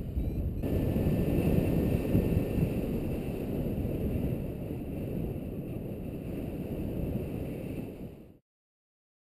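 Airflow buffeting a camera microphone on a paraglider in flight: a steady low rumbling rush that eases a little, then cuts off to silence about eight seconds in.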